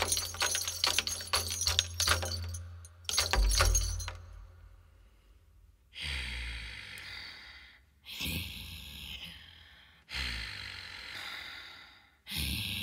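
Ritual percussion: rapid metallic jangling and rattling over low drum thumps, fading out after about four seconds. Then come four slow hits about two seconds apart, each a low thump with a bright crashing splash that dies away.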